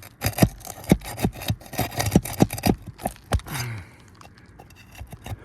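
Rapid sharp taps and knocks of a tool being worked under a roofing nail in an asphalt shingle to pull it up, about three or four a second, ending in a short scrape a little past three seconds in.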